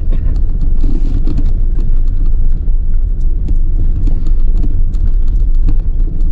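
A Skoda car driving slowly over a rough, stony track, heard inside the cabin: a steady low rumble with many small clicks and knocks as the tyres roll over loose stones.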